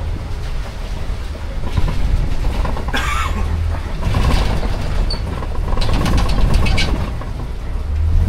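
Open-sided safari ride truck driving along its track, the engine running with a steady low rumble. A short hiss comes about three seconds in, and rattles and clatters from the vehicle around six to seven seconds.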